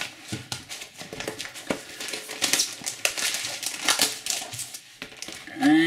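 Rustling and crinkling of a glossy paper guide and a plastic sleeve being handled and slid together, with scattered small taps and clicks.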